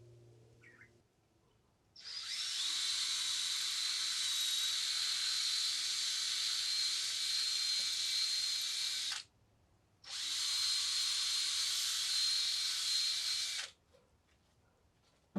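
Electric drill boring out a broken bolt with a larger bit, running at a steady speed for about seven seconds. It stops briefly, then runs again for about four seconds.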